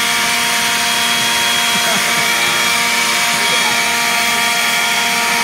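Ryobi leaf blower running steadily, a loud rush of air with a steady whine from its fan.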